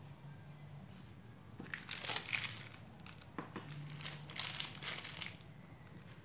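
Plastic piping bag of buttercream crinkling as it is picked up and handled, in two bouts of rustling about two seconds apart.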